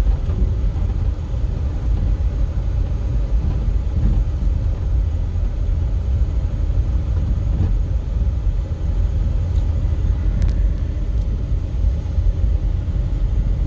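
Steady low rumble of a vehicle travelling along a road, mostly road and wind noise, with a few faint ticks near the end.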